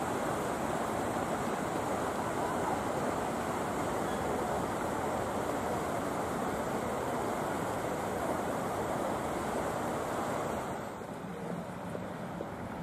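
Steady rushing wind noise that drops away sharply about eleven seconds in, leaving a quieter background.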